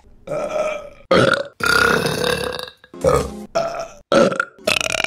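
Women burping, several burps one after another, one of them drawn out to over a second.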